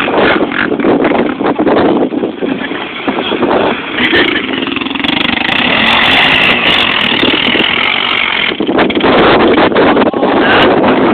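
ATV quad engines running as the quads climb a sandy hill: loud, rough engine noise whose tone shifts between about four and eight seconds in.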